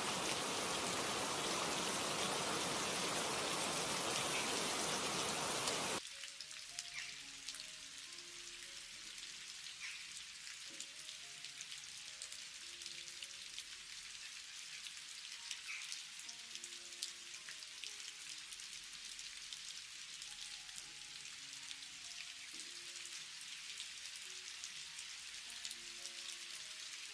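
Heavy rain falling in a steady downpour, which cuts off sharply about six seconds in to lighter rain with scattered individual drops. Faint soft musical notes play under the lighter rain.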